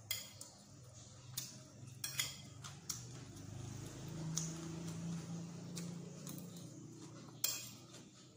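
Eating at a plate: a metal spoon and fork clink and scrape on a ceramic plate and salad is chewed, giving a handful of sharp clicks, the loudest near the end. A low, steady hum runs through the middle.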